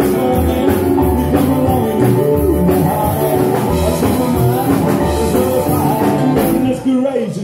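Live rock 'n' roll played by a trio on upright bass, hollow-body electric guitar and piano. The music dips briefly in loudness near the end.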